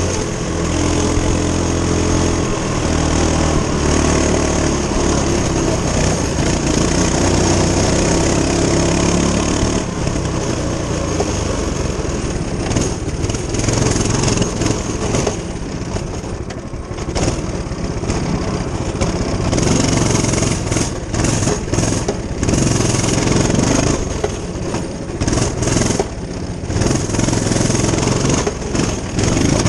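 Coleman CT200U-EX minibike's single-cylinder four-stroke engine running while the bike is ridden, its pitch changing with the throttle. After about ten seconds the steady engine tone gives way to a rougher, noisier sound, with choppy dips in level in the second half.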